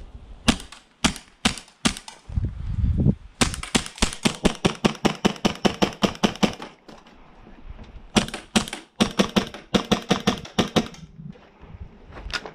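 Action Army AAP-01 gas blowback airsoft pistol firing. It fires four single shots in the first two seconds, then after a brief low rumble a long rapid string of evenly spaced shots lasting about three and a half seconds. After a pause comes a second run of quick shots broken by short gaps, and one more shot near the end.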